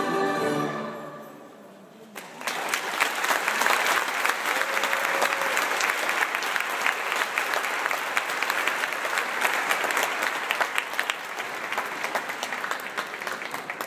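A children's choir's last sung notes die away, and after a short lull the audience starts applauding about two seconds in. The clapping holds steady and begins to fade near the end.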